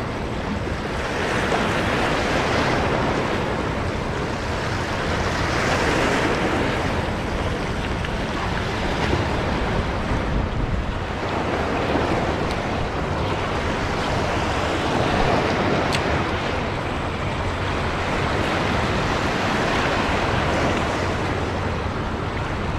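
Sea waves washing at the shore with wind buffeting the microphone, the noise swelling and easing every few seconds.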